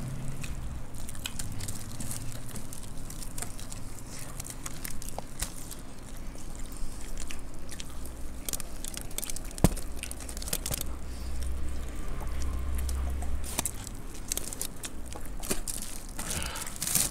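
People chewing and crunching mouthfuls of dry puffed rice (murmura) mixed with sev and fried snacks, a run of crisp crackles with one sharper click about ten seconds in.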